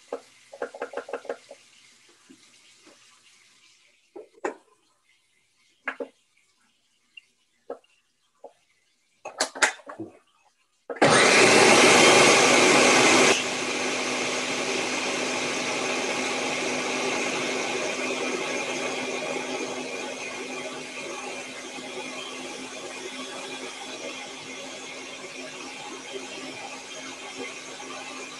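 A kitchen appliance's electric motor starts suddenly, runs loud for about two seconds, then drops to a steady, quieter running hum that slowly fades. A few light kitchen clatters and knocks come before it.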